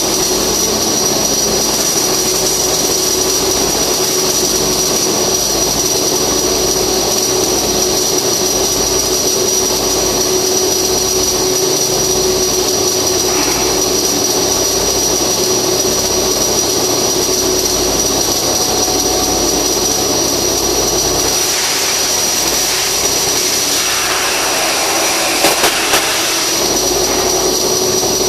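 Flux-cored arc welding: a steady hiss and crackle of the arc under a continuous high-pitched whine, with the sound changing about 21 seconds in and a few short louder sounds near the end.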